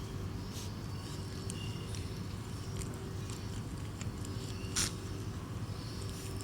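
An animal chewing food: a run of small crunching clicks over a steady low hum, with one sharper crunch about five seconds in.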